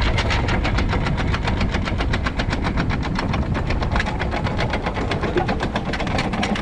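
Boat's anchor windlass hauling in the anchor, its motor running with a fast, even clatter of about eight clicks a second.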